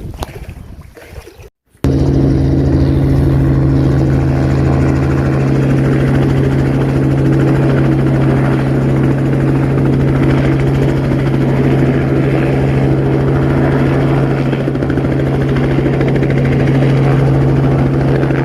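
Wind buffeting the microphone, then after a sudden cut a loud, steady engine drone with a low, even hum that holds constant.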